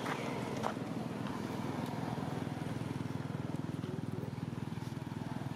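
Small engine idling steadily with a fast, even throb.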